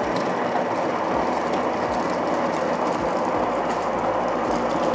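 Built-in grinder of a BEEM Espresso-Grind-Profession espresso machine grinding a single dose of espresso beans into the portafilter. It starts suddenly at the press of the double-shot button and keeps up a steady grinding noise.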